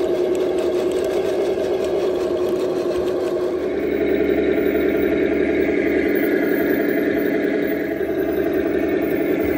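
Radio-controlled scale model tank running: a steady electronic engine drone from its sound unit with the whine of its electric drive motors, getting louder about three and a half seconds in.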